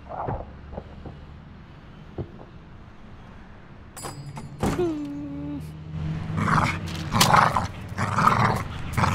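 Bulldog making rough, rasping growl-like noises about once a second, starting past the middle. A short falling whine comes just before them.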